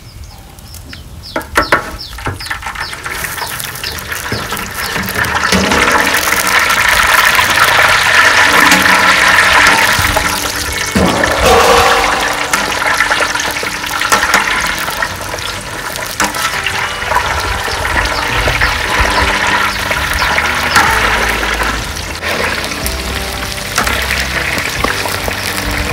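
Whole banana blossoms deep-frying in a large wok of hot oil: a dense sizzling, crackling hiss that swells about five seconds in as they go into the oil, then carries on steadily.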